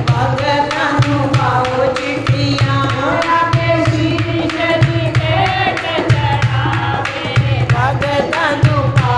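Devotional bhajan to the goddess: a singing voice over a steady, quick drum beat.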